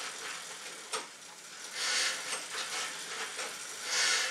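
Air-resistance fan wheel of a V-fit dual-action exercise bike whooshing as it is driven through the arm handles, the whoosh swelling twice with the strokes. A single light click about a second in.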